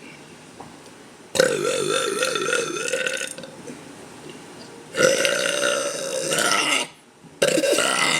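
A young woman burping deliberately, three long burps in a row. The first two last about two seconds each, the first wavering up and down in pitch, and a shorter one comes near the end.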